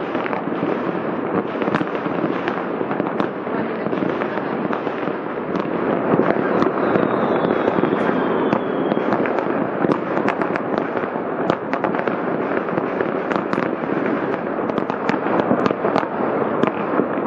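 Many distant New Year's fireworks going off at once across a city: a continuous rumble of overlapping bangs, with many sharper cracks and pops. A faint high whistle, falling slightly in pitch, runs for about two seconds from around seven seconds in.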